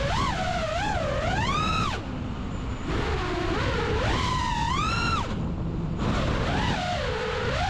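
FPV freestyle quadcopter's brushless motors whining, the pitch sweeping up and down again and again as the throttle is worked, over a low rush of air.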